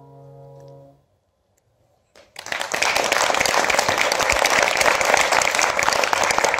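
The final held chord of a grand piano dies away about a second in, followed by a moment of quiet. Then the audience breaks into applause, which keeps on steadily and is the loudest sound.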